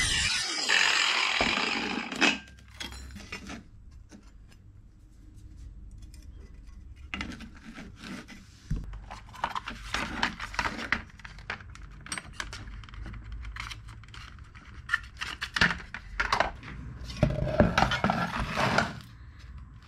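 Hand work on wooden parts at a workbench: scattered clicks, knocks and light scrapes as pieces and small tools are handled, with a longer scraping stretch near the end. Music fades out in the first couple of seconds.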